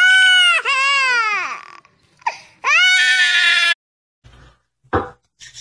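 A woman crying in two long, loud, high-pitched wails, the second cut off abruptly a little past halfway. After that only faint sounds remain, with a single sharp knock near the end.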